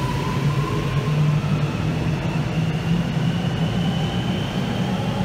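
Melbourne Metro electric suburban train moving along an underground station platform: a steady rumble of wheels on rails with a faint whine that rises slowly in pitch.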